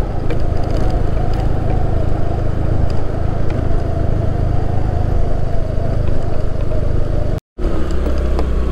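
Motorcycle engine running steadily on the move, under a dense rushing noise. The sound drops out completely for a split second near the end.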